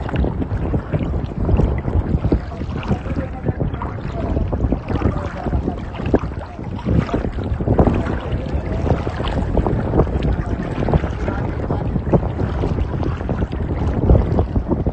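Wind buffeting the microphone over open sea, with water sloshing and splashing, irregular and without any steady engine tone.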